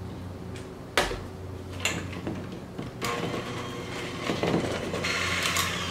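A couple of sharp knocks, then an electric hand mixer starts about three seconds in and runs steadily, beating powdered sugar into strawberry frosting in a stainless steel bowl.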